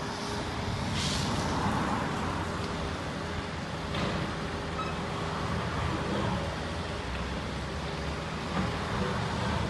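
Steady rumble of engines and road traffic, with a short hiss about a second in and a faint click about four seconds in.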